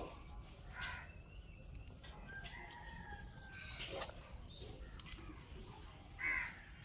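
A rooster crowing faintly, with a short, louder call near the end.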